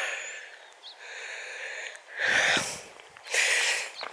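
A walker breathing heavily close to the microphone: three loud breaths, the first at the start and two more in the second half.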